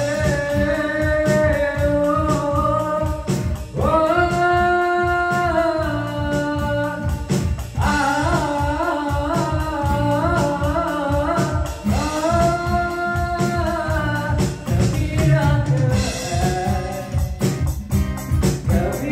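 Male voice singing a Hindi song in long held notes with vibrato, accompanied by acoustic guitar and a steady beat on an electronic drum kit.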